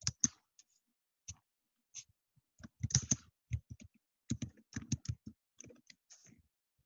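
Typing on a computer keyboard: irregular keystroke clicks, a few scattered at first, then quicker runs from about two and a half seconds in.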